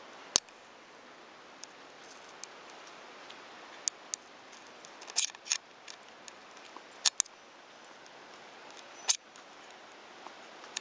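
Irregular sharp clicks and ticks over a faint steady hiss. They come singly, in pairs, and in a short cluster about five seconds in, with the loudest click just after the start.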